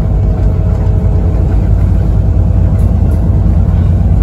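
VDL SB200 Wrightbus Pulsar 2 single-deck bus under way, heard from inside the passenger saloon: a loud, steady low engine rumble, with a faint whine over it that fades out over the first couple of seconds.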